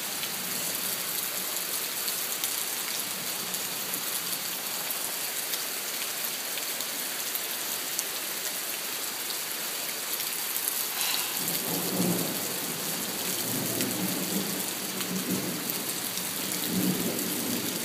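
Heavy rain falling steadily. A low, rolling rumble comes in about eleven seconds in and continues to the end.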